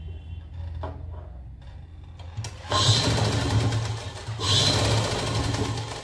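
Sewing machine stitching a fabric strip in two quick runs: the first starts about three seconds in, then comes a brief pause and a second run until near the end.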